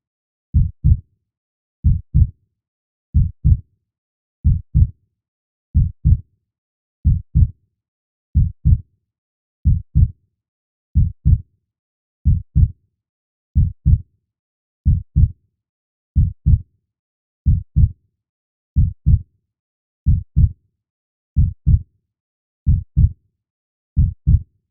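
Heartbeat: slow, even lub-dub double thumps, one pair about every 1.3 seconds, low in pitch with silence between the beats.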